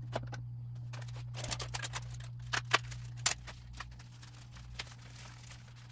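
Irregular light clicks and rustles of a small battery-management circuit board and its plastic parts being handled, over a steady low hum.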